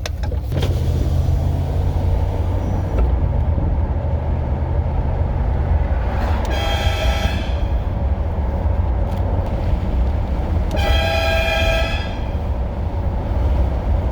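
Truck-mounted twin-horn air train horn sounding two short blasts over a steady low rumble. The first blast comes about six and a half seconds in and lasts under a second; the second comes about eleven seconds in and lasts about a second.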